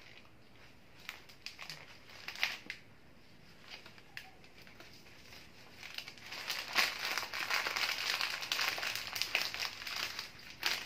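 Wrapping paper rustling and crinkling as it is handled and gathered around a bouquet: a few light rustles and ticks at first, then continuous crinkling from about six seconds in.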